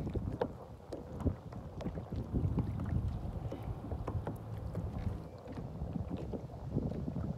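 Wind buffeting the microphone as a fluctuating low rumble, with scattered small clicks and knocks from handling.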